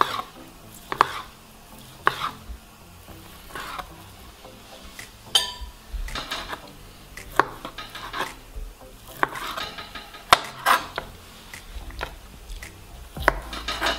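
Kitchen knife cutting boiled beef on a plastic cutting board, the blade knocking against the board in irregular sharp taps about once a second.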